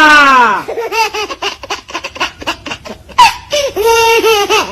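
High-pitched laughter. It begins with a drawn-out squeal falling in pitch, then breaks into a quick string of ha-ha-ha pulses, with another longer laughing stretch near the end.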